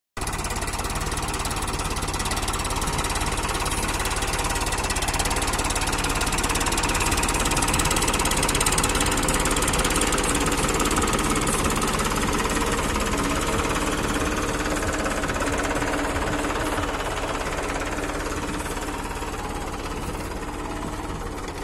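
Farmtrac Powermaxx tractor's diesel engine running steadily under load as it pulls a ridger through the soil. It grows a little louder near the middle, as the tractor passes close by.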